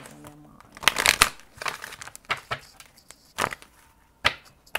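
Tarot cards being handled and shuffled: a string of short, dry card rustles and snaps, the busiest cluster about a second in.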